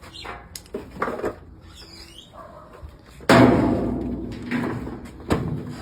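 The washing machine's sheet-metal top cover being handled and set back in place: some light scraping and knocking, then a loud clank about three seconds in that rings down over a couple of seconds, and another knock near the end.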